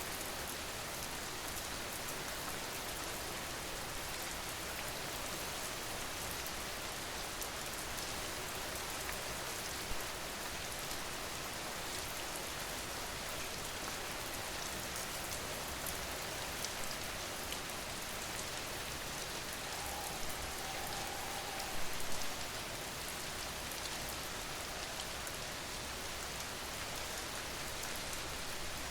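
Steady rain falling on a car, heard from inside the cabin. A few louder drops or taps stand out about ten seconds in and again around twenty-two seconds.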